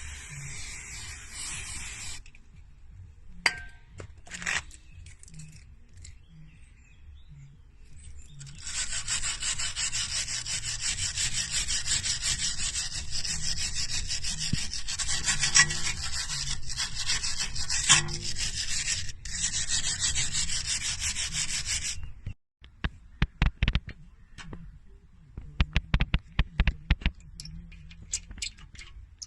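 Stiff brush scrubbing rust off a brake caliper in a long run of fast strokes, followed by a series of sharp metallic clicks and knocks.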